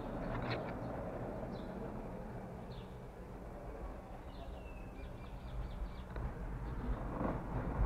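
Steady low hum of the cable car and its station machinery, with a few faint high chirps, growing louder near the end.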